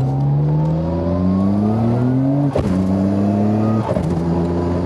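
Car engine heard from inside the cabin, pulling with its pitch rising steadily. Then come two quick upshifts through a dog-engagement gearbox, about two and a half and nearly four seconds in. Each gives a short click and a sudden drop in pitch before the engine pulls again.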